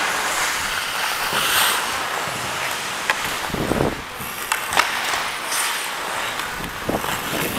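Ice hockey skate blades scraping and carving across the ice, heard close up from a head-mounted camera, with a few sharp clacks about three and five seconds in and a brief low rumble around halfway.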